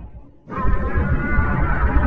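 Loud music with a guitar-like sound cuts in abruptly about half a second in, after a brief dip in level.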